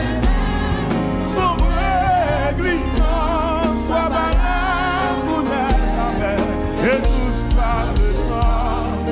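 A gospel hymn: a man sings with heavy vibrato into a microphone over instrumental accompaniment with sustained bass notes.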